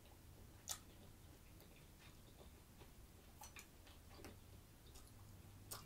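A few faint, sharp clicks and taps from eating with a metal fork, the loudest under a second in and another near the end, over near silence and a faint low hum.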